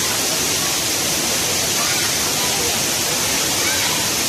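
Waterfall rushing, a loud steady roar of falling water, with faint voices of people far off in the background.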